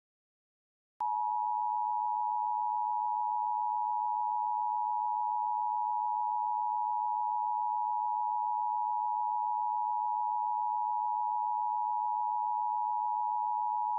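Emergency Alert System attention tone: one steady high-pitched tone that starts abruptly about a second in, holds unchanged for about thirteen seconds and cuts off. It is the alert signal that comes before a spoken warning.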